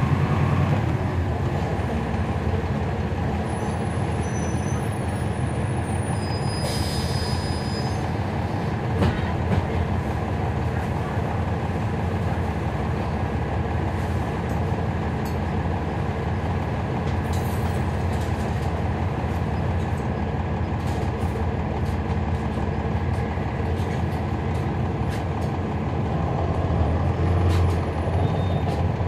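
Inside a 2011 NABI 40-SFW transit bus: its Cummins ISL9 diesel engine running with a steady low drone under road and cabin noise, with scattered light rattles and a brief high squeal about seven seconds in.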